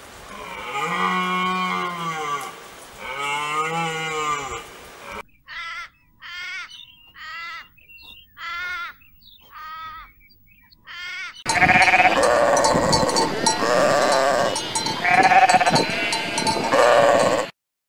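Two long, arching animal calls, then a run of about seven short pulsed calls, then a flock of sheep bleating over one another, loud and dense, in the last six seconds.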